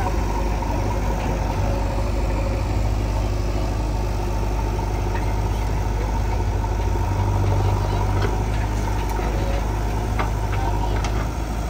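Heavy diesel engine running steadily at idle with a deep low hum, and a few faint clicks in the later seconds.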